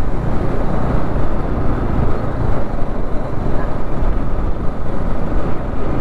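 Motorcycle on the move: a steady, loud rumble of wind on the microphone mixed with engine and road noise.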